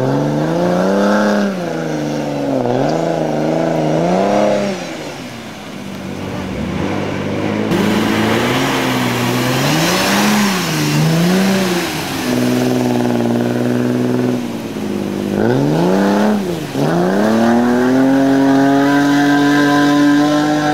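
Off-road car's engine revving up and down again and again as it pushes through deep mud and water, with a rush of splashing and churning around the middle. Near the end the engine drops sharply, then climbs to high revs and holds there.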